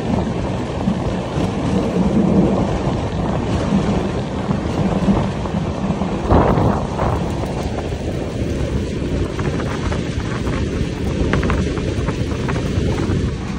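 Express passenger train running on the track, heard from an open coach doorway: a steady rumble of wheels on rail mixed with wind buffeting the microphone. A louder burst comes about six seconds in, and light clicks follow later.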